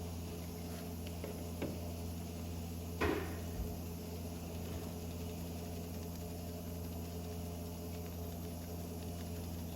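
Steady low electrical hum in the workshop, with a faint click and then a single light knock about three seconds in, like a tool or container being set down.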